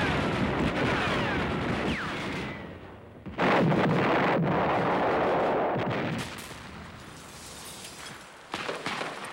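Battle sounds of gunfire and shellfire: dense firing with several falling whistles over the first couple of seconds, then a sudden loud explosion about three and a half seconds in that rumbles on for a couple of seconds, followed by quieter scattered shots.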